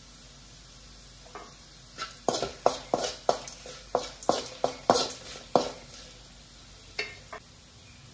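Steel spoon scraping and clinking against an aluminium kadai while stirring a tempering of peanuts, red chillies and turmeric in hot oil, over a faint sizzle. About a dozen sharp clinks come in a quick run a couple of seconds in, then two more near the end.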